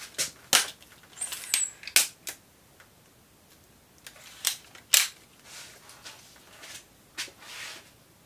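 Several sharp clicks and knocks with soft scraping between, the loudest about five seconds in: hands working on the trigger of a Gamo Swarm break-barrel air rifle.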